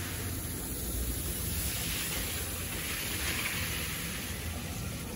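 Steady hiss of running water spraying and splashing. It swells for a couple of seconds in the middle, over a low rumble.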